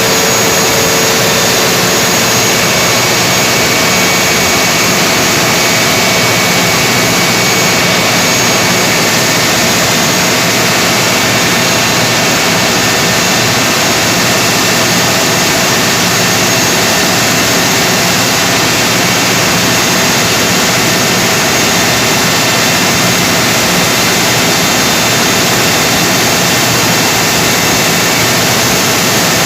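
Generator running steadily under load during a load test: a loud, even rushing noise over a low engine hum, unchanging throughout.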